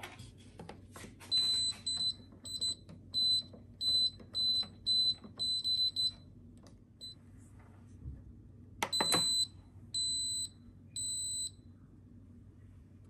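Instant Pot Pro Crisp + Air Fryer control panel beeping: a quick run of short high beeps as the dial is turned through its settings. Then come a few clicks and three longer beeps as the program starts preheating.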